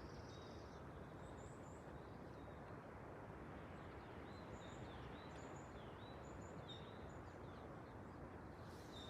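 Small birds chirping faintly, many short high calls with little falling notes, over a steady background hiss of the forest.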